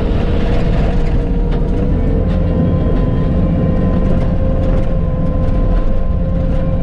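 Bobcat T650 compact track loader's diesel engine running steadily, with a constant whine over a heavy low drone, while it works gravel with a grading attachment.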